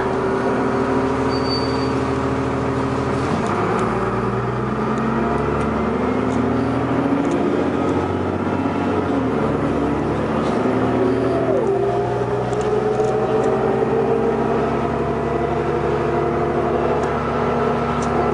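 Diesel engine of a 2002 New Flyer D40LF transit bus, heard from on board, running under way. Its pitch climbs and then drops back several times as the automatic transmission shifts.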